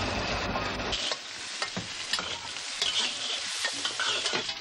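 For about a second, industrial sewing machines whir steadily, then cut off abruptly. Several woks of vegetables follow, stir-fried at once: the food sizzles while metal spatulas scrape and clank against the woks.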